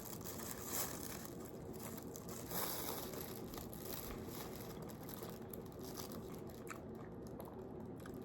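Faint crinkling and handling noises with soft bites as a slice of pepperoni pizza is picked up and eaten.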